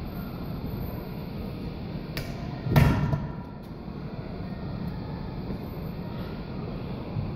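A barbell loaded with weight plates set down on a wooden floor: one loud heavy thud about three seconds in that rings briefly, after a small knock a moment before. A steady low hum runs underneath.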